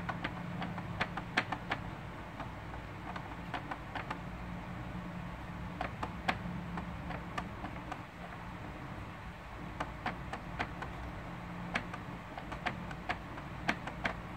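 Sharp plastic clicks, some single and some in quick runs, as the ribbed focus wheel of a Pixamo Vemo Q3 mini projector is rolled back and forth under a fingertip, over a steady low hum.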